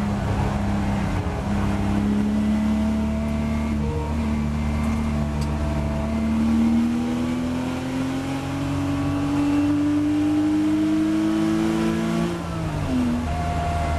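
Porsche Boxster race car's flat-six engine heard from inside the cabin. It holds steady revs at first, then climbs steadily in pitch under full acceleration, and an upshift about twelve seconds in drops the revs before they climb again.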